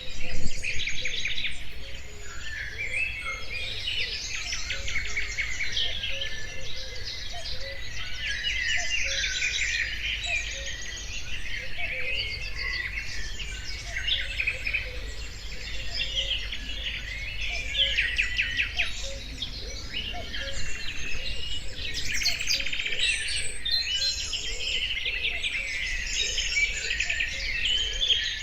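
Several birds singing at once, a dense chorus of overlapping chirps and trills, over a steady low rumble. A thump sounds right at the start.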